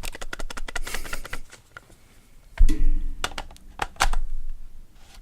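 An old lens being fitted to a Canon EOS 800D body: a quick run of small clicks, then scattered knocks and clicks from the lens and the camera's bayonet mount being handled.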